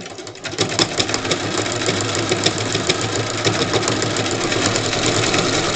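Electric sewing machine starting up about half a second in and then stitching steadily through the quilt block, with rapid, even needle strokes.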